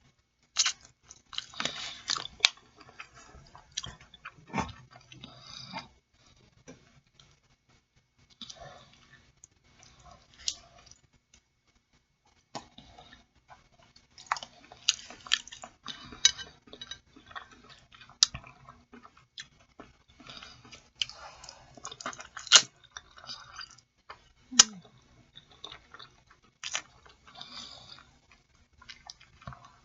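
A person chewing food close to the microphone: wet mouth smacks and sharp clicks in irregular bouts, with a few short pauses.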